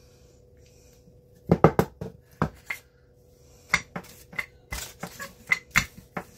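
Wooden rolling pin clacking and knocking on the counter as pie dough is rolled out on a pastry mat. A quick run of sharp knocks comes about a second and a half in, followed by more spaced knocks and clicks.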